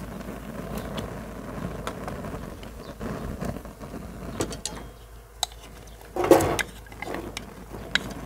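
Chopped onion tipped from a plastic bowl into a pan of oil on a gas camping stove, landing with a short loud clatter about six seconds in and a smaller one just after. Before that, only small scattered clicks and handling sounds.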